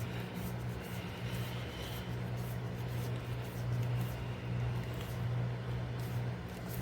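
Faint scraping and small clicks of a screwdriver turning the action screws into a wooden rifle stock, over a steady low hum.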